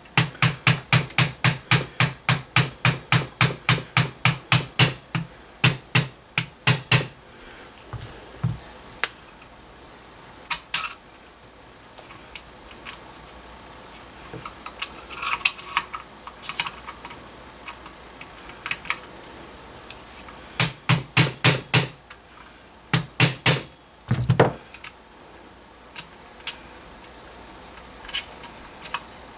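Small hammer tapping a punch against metal in quick, even strikes, about four a second, driving the magazine catch pin out of a Saiga 12 shotgun's receiver. Further short runs of taps come after a pause, with scattered light metallic clicks between them.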